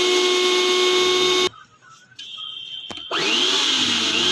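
Kitchen mixer grinder's newly fitted motor running at speed, switched off about a second and a half in. After a click it is switched back on and spins up with a quickly rising whine, then runs steadily again.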